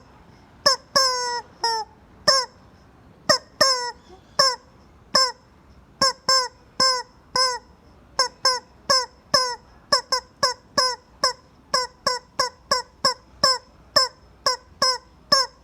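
Rubber chicken squeeze toy squawking over and over as it is squeezed, each squawk a short falling honk. A few longer squawks come first, then quicker, shorter ones, about two a second.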